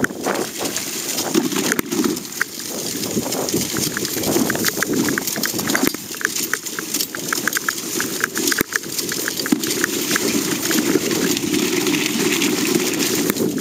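Dogsled running across tundra: the sled scraping and rattling over dry grass, snow and ice, with a steady rush and many quick clicks, loudest in the first half.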